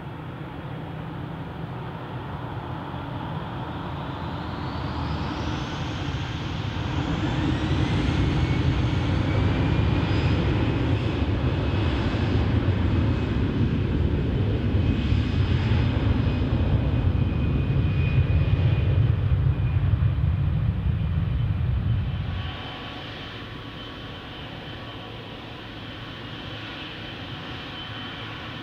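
Airbus A320 jet engines spooling up with a rising whine, then running loud and steady at high thrust. About 22 seconds in the sound cuts abruptly to a quieter, steady jet whine from another airliner at low power.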